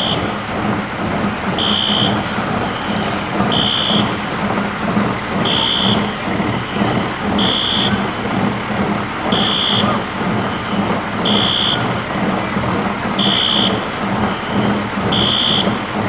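Building fire alarm beeping, one short high beep about every two seconds, over a loud steady rush of water.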